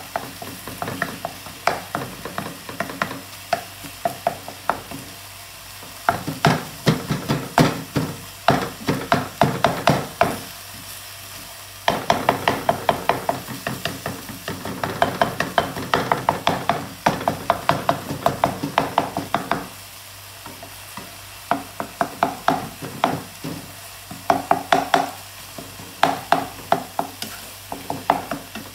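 Shredded pork ham frying in a pan: a steady sizzle under runs of rapid scraping clicks as a utensil stirs and turns the meat against the pan. Every few seconds the stirring pauses and only the sizzle is left.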